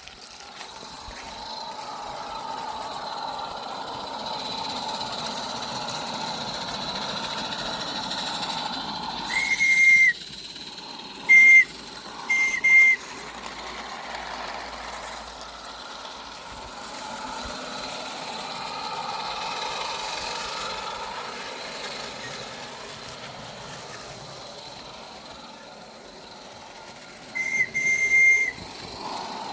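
Accucraft Ruby live-steam garden-scale locomotive running with a steady steam hiss, its high-pitched steam whistle blown in three toots about nine to thirteen seconds in (the first the longest) and once more near the end.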